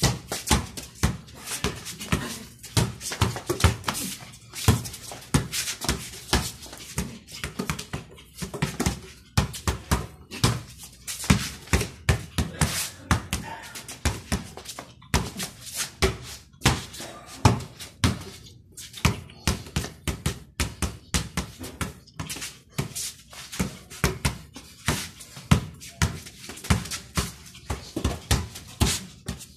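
A basketball dribbled hard on a tiled concrete floor: a fast, uneven run of sharp bounces, several a second.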